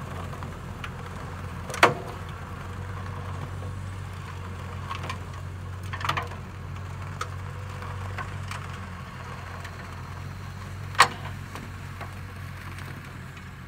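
Engine of a 2.5-ton truck converted into a manure spreader running steadily at a distance, a low even hum. Three sharp knocks cut through it: one about two seconds in, a smaller one about six seconds in, and the loudest about eleven seconds in.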